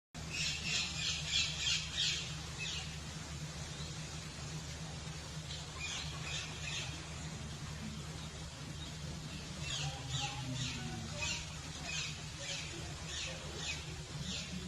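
A bird giving short, harsh squawking calls in runs of two or three a second, with pauses between the runs, over a steady low hum.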